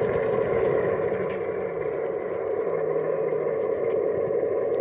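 5-inch gauge model of a Class 47 diesel locomotive making a steady engine-like drone, even and unbroken with a little low pitch wander.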